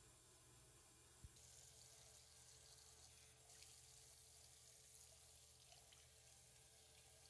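Faint water running from a bathroom sink faucet, coming on about a second and a half in after a light click.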